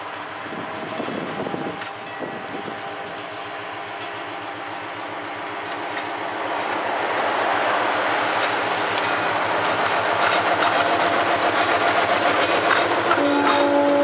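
Fairbanks-Morse H-12-44 switcher's opposed-piston diesel engine running, growing steadily louder as the locomotive approaches and passes, with wheels clicking over rail joints. A horn starts to blow near the end.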